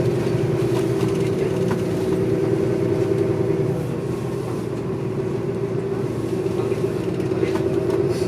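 Inside a moving city transit bus: the steady drone of the bus's drivetrain together with road noise, easing slightly about four seconds in, with a few faint clicks and rattles.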